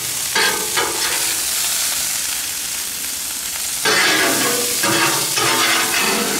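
Steaks sizzling in oil on a hot flat-top griddle, a steady frying hiss, with a metal spatula scraping across the griddle as they are turned; the scraping is loudest from about four seconds in.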